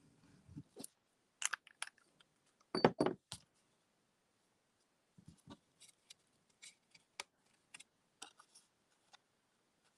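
Cardstock being handled while adhesive is put on a paper belly band: scattered light paper rustles and small clicks and taps, the loudest a close pair about three seconds in.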